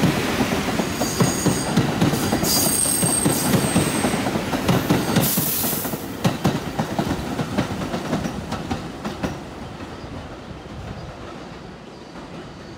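Bombardier R62A subway train pulling away past the platform: steel wheels clacking over rail joints, with brief high wheel squeals in the first few seconds and a short hiss about five seconds in. After the last car passes, the rumble fades steadily as the train recedes.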